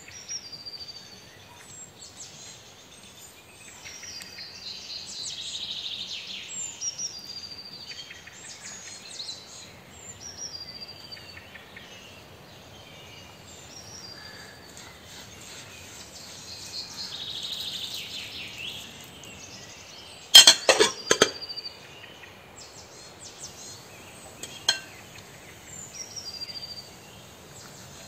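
Small birds chirping over and over in the background while food is handled in a glass bowl. A short burst of clinks and knocks about two-thirds of the way through is the loudest sound, and a single sharp click follows a few seconds later.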